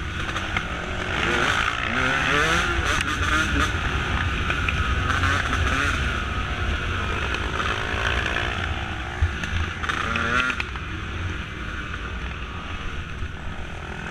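Dirt bike engine running under way, its pitch rising and falling as the throttle is worked, with wind rumbling on the microphone.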